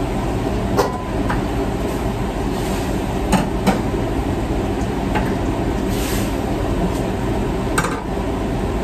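Steady rushing noise of a commercial wok range and exhaust hood running, with a metal ladle knocking against a steel wok about five times during stir-frying. The sharpest two knocks come close together a little over three seconds in.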